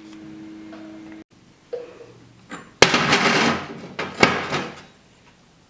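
Pneumatic impact wrench on the engine, two short bursts of hammering, the first about a second long and the second shorter. Before them a steady hum cuts off suddenly about a second in.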